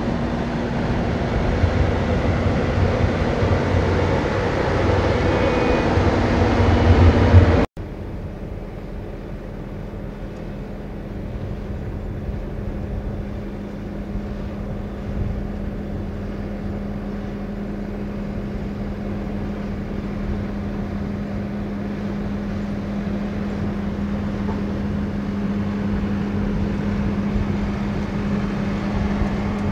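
A tractor engine running steadily with a low drone. About eight seconds in the sound cuts sharply to a quieter engine hum, which slowly grows louder.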